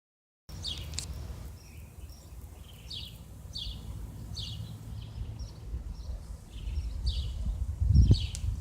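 A bird chirping over and over, each call a short falling chirp, over a low uneven rumble. A louder bump comes near the end.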